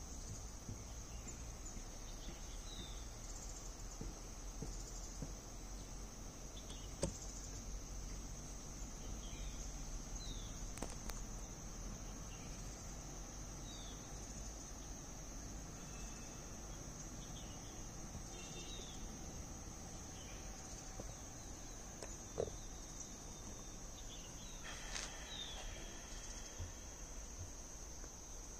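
Steady high-pitched drone of insects, with short chirps repeating every second or two and a brief busier burst of calls near the end.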